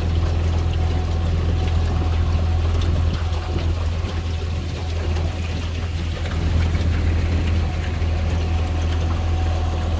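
Outboard motor of a rowing coach's launch running steadily, a strong low hum with a hiss of water and air over it.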